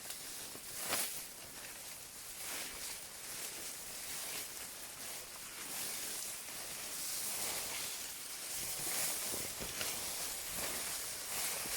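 A hiker's footsteps on a mountain trail with rustling, over a steady hiss. Irregular footfalls, the clearest about a second in.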